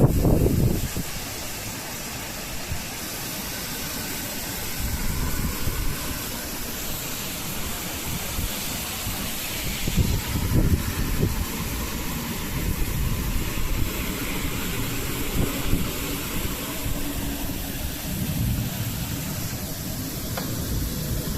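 Strong storm wind blowing steadily, with gusts buffeting the microphone in irregular low rumbling surges, the strongest at the very start and again about halfway through.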